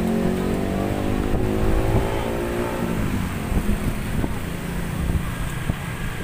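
A motor vehicle engine passing on the road, its steady hum falling in pitch and fading about three seconds in as it goes by, then a low traffic rumble with a few light clicks.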